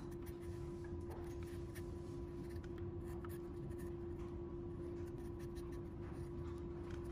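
A chisel paring the angled end of a small wooden kumiko strip held in a jig: light scratchy scraping with a few faint ticks, over a steady hum.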